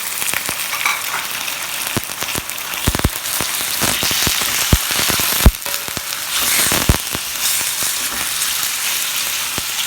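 Chicken pieces sizzling loudly in hot oil with garlic, onion and ginger, just after going into the pan. A few sharp knocks come through the sizzle, the loudest about halfway.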